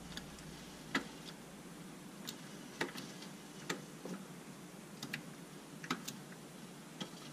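Aussie lunchbox locker in a Dana 35 rear differential clicking as the carrier is turned by hand: a dozen or so sharp, irregular clicks as the locker's cam gears ratchet in and out. The locker won't stay locked, the sign of an improper install.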